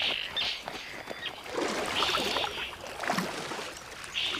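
Waterbirds splashing and calling on a pond in a fight over a nest site: irregular water splashes with several short, harsh, raspy calls, one at the start, one about two seconds in and one near the end.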